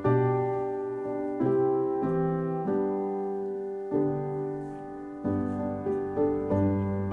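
Background piano music: slow chords, a new one struck about every second and a half, each ringing and fading away.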